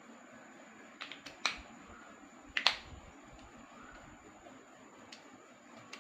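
Sharp clicks and snaps from handling a selfie stick: a quick group of three about a second in, the loudest double click about two and a half seconds in, and a faint one near the end.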